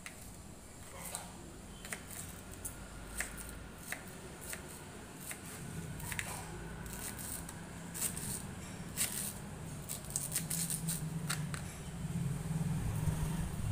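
Kitchen knife dicing raw bamboo shoot on a plastic cutting board: a run of irregular crisp cuts and taps, sparse at first and quicker and denser from about halfway through.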